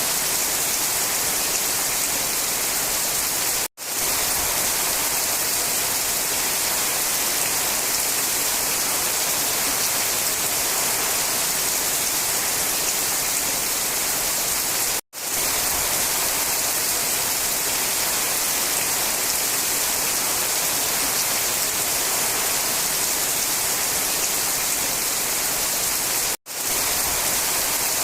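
Steady rain, an even hiss with most of its energy in the high range. It drops out to silence for an instant three times, at even spacing about eleven seconds apart.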